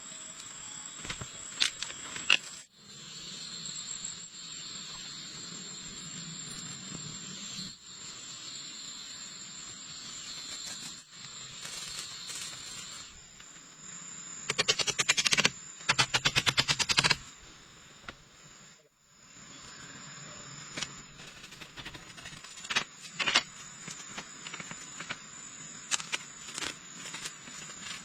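Steady rain hissing. A little past the middle, bursts of rapid clicking and rattling come and go over a few seconds, with a few single clicks scattered elsewhere.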